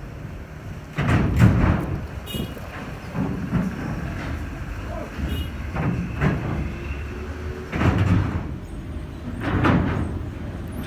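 Speedboat on the water, with heavy thuds and rushing surges every couple of seconds.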